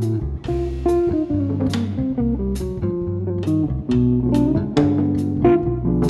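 Jazz trio playing live: a semi-hollow electric guitar plays chords and melody over an electric bass line, with drums keeping time in regular cymbal strokes.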